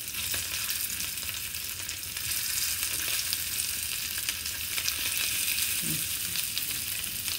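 Small boiled potatoes shallow-frying in oil in a frying pan over a low gas flame: a steady sizzle with light crackling.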